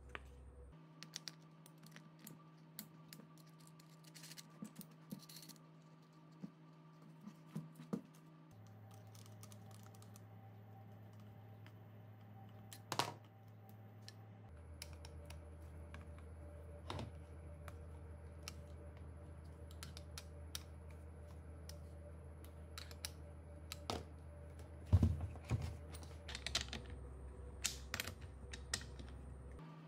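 Scattered light clicks and metallic taps of hand tools and parts during assembly of a chainsaw attachment on an angle grinder: a screwdriver turning the chain-tension screw and a socket wrench tightening the bar nuts. A faint steady low hum lies underneath, and a short cluster of louder knocks comes near the end.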